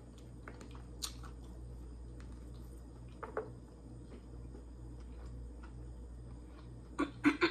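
Quiet chewing and small wet mouth clicks of someone eating fried chicken, over a low steady hum. A few louder mouth sounds come near the end.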